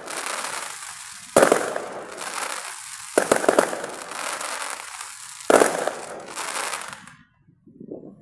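Aerial fireworks bursting: three loud bangs a couple of seconds apart, each followed by a long crackling hiss, dying away a second before the end.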